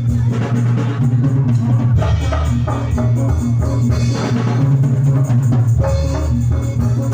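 Jathilan music played loud over a sound system: drums and struck percussion keeping a busy beat over a heavy, steady bass.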